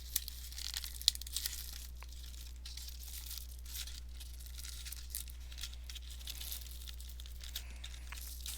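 Thin plastic shrink-wrap being torn and peeled off a Blu-ray case and slipcover by hand, with intermittent crinkling and small sharp crackles, one of them louder about a second in.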